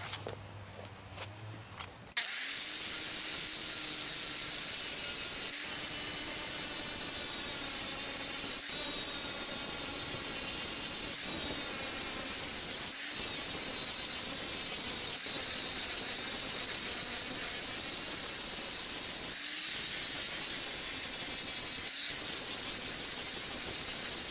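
DeWalt angle grinder with a fresh 3M Silver grinding wheel grinding thick, hard mill scale off a steel slab. It starts about two seconds in and then runs steadily under load, with a high whine and a few brief dips.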